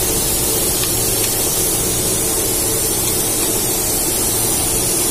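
A steady hiss with a low hum underneath, unchanging throughout.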